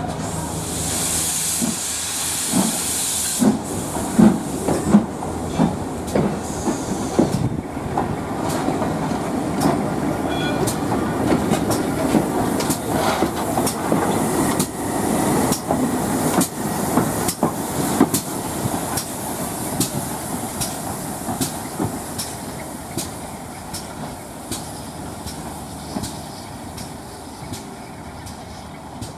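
A Great Western Railway Castle class steam locomotive and its train run past. A loud hiss of steam comes in the first few seconds, then a long run of rhythmic beats and wheel clicks. The sound is loudest around the middle and fades toward the end.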